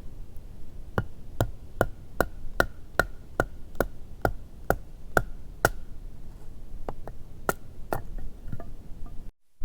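A camping axe chopping wood with quick, evenly spaced strikes, about two and a half a second for several seconds, then a few slower, lighter blows.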